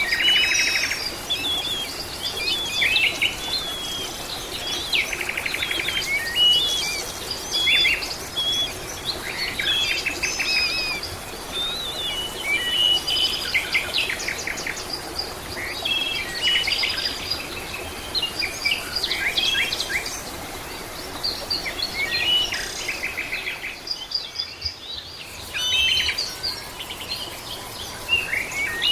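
Several songbirds calling and singing at once, a busy mix of short chirps, quick pitch glides and rapid trills, with a brief lull about three-quarters of the way through.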